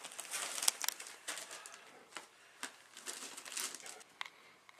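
Handling noise: irregular rustling and crinkling with a few sharp clicks, fading out near the end.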